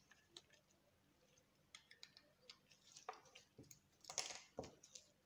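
Near silence with a few faint, scattered clicks and light taps of small objects being handled, the loudest about four seconds in.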